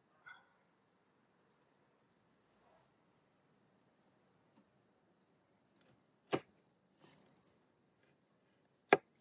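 Crickets chirring in a steady high trill, with two sharp knocks: one about six seconds in and a louder one near the end.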